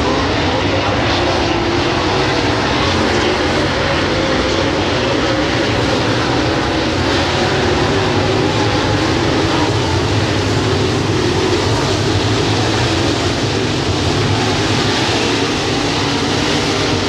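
A field of dirt late model race cars with V8 engines running hard around a dirt oval: loud, steady, overlapping engine noise from many cars at once.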